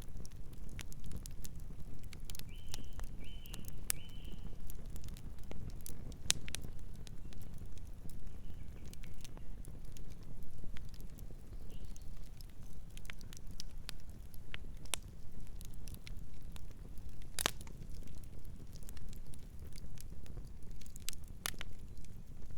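Campfire burning with irregular sharp crackles and pops over a steady low rumble of flame. Three short high chirps sound together about three seconds in.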